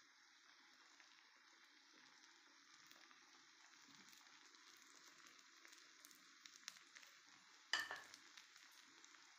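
Faint, steady sizzling and bubbling of minced chicken and potato wedges cooking in liquid in a frying pan, with one sharp knock near the end.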